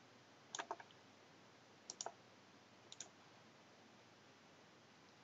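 Computer mouse buttons clicking: three quick groups of two to four sharp clicks about a second apart, over faint room hiss.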